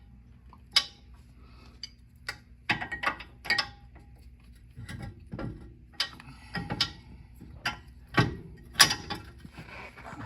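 Irregular metallic clicks, clinks and knocks as rear brake pads and caliper hardware are handled and fitted back in place, some with a short metallic ring.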